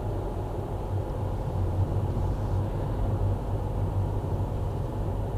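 Steady low drone of a car driving at road speed, engine and tyre noise heard from inside the cabin.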